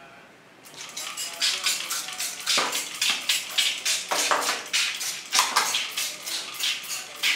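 Plastic crinkling and clattering as a toy water gun and its packaging are handled: a quick, irregular run of crackles with a few louder knocks.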